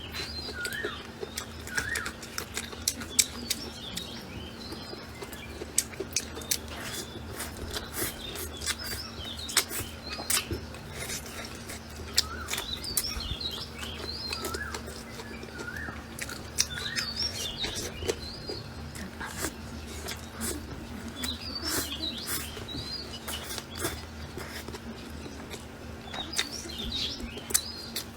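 Small birds chirping again and again, over frequent short clicks and taps from eating a bowl of noodles with chopsticks. A faint steady hum sits underneath.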